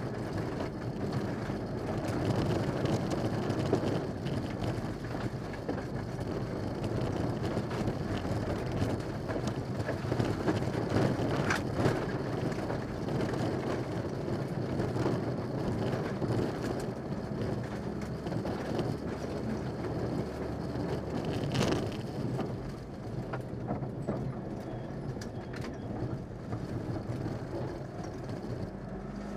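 Mitsubishi Lancer Evolution VI rally car heard from inside the cabin at speed on a gravel stage: its turbocharged four-cylinder engine running under load over steady road and gravel noise. A sharp knock is heard twice, about a third of the way in and again about two-thirds in.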